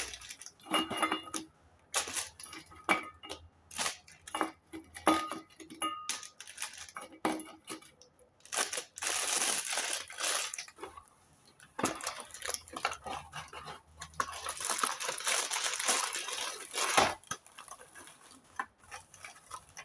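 Kitchen utensils and dishes handled while making sweets: a quick run of sharp clicks and taps, then two longer stretches of steady scratchy noise about nine and fifteen seconds in.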